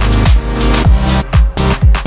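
Background electronic dance music with a steady thumping beat and falling bass-drum sweeps.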